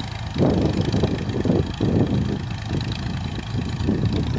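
Farm tractor engine running steadily as it pulls a plough through the soil, with uneven swells in its loudness.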